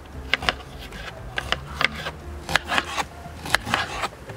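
Two knives slicing onions on a plastic cutting board: irregular, quick taps of the blades striking the board as each slice goes through.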